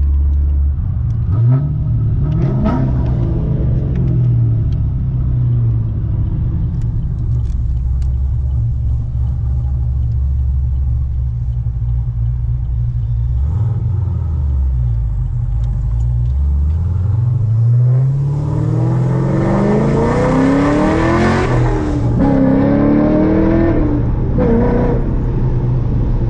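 2010 Camaro SS V8 under way with a manual gearbox, mostly steady, then revving up several times. Near the end it gives one long hard pull with the pitch climbing, followed by quick drops and fresh climbs as it is shifted up through the gears.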